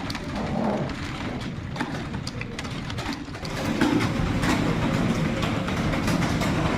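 Many computer keyboards typed on at once: a dense, irregular clatter of key clicks that gets louder about four seconds in.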